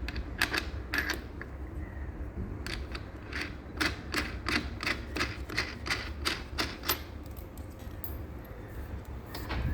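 A series of sharp clicks from the sofa's fittings being worked by hand during assembly: two or three at first, then a steady run of about three a second for several seconds.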